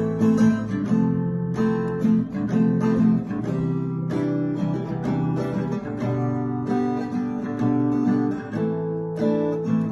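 Background music: an acoustic guitar strumming chords, with no singing.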